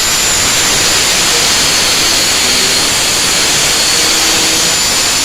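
Electric arc welding on a round steel bar: a loud, steady hiss from the arc.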